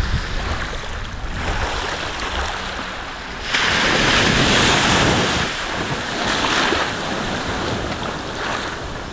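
Small waves washing up a sand beach, with wind rumbling on the microphone. The surf gets louder for a couple of seconds about three and a half seconds in.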